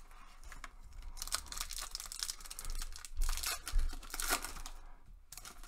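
Foil wrapper of an Upper Deck hockey card hobby pack being torn open and crinkled by hand: a run of crackling tears from about a second in, ending about four and a half seconds in.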